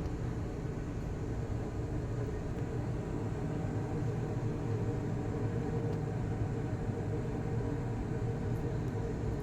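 Steady low hum and rumble, unchanging, with a few faint steady tones in it: the strange sound heard inside the house.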